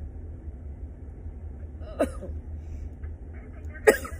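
A person makes two brief vocal sounds, about two seconds in and again near the end, reacting to a nasal swab pushed up the nose, over a steady low rumble.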